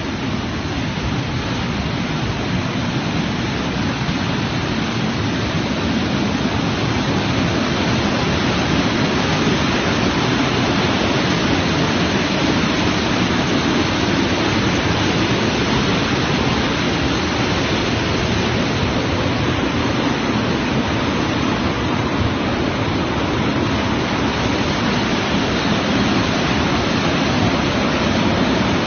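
Floodwater pouring through the Zarqa Ma'in dam: a loud, steady rush of water that swells slightly over the first few seconds and then holds level.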